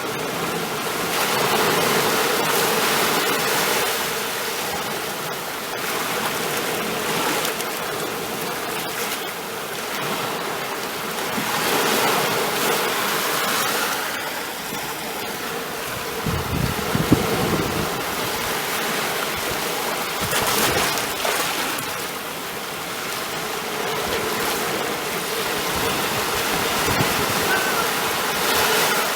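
Ocean surf washing in: a steady hiss of water that swells and eases every few seconds as waves break. A little past halfway come a brief low rumble and one sharp click.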